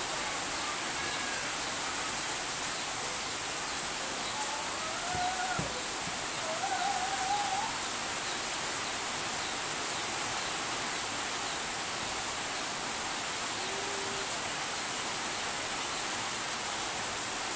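Steady rain falling, an even hiss throughout, with a few faint wavering calls or voices over it now and then.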